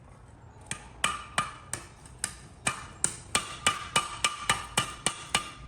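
Hammer striking metal on an anvil in a quick run of blows, about three a second, each blow ringing.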